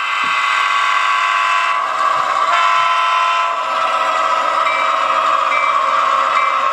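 Onboard digital sound of a model GP38-2 diesel locomotive playing a steady diesel locomotive sound through its small speaker, with a few short high tones in the second half.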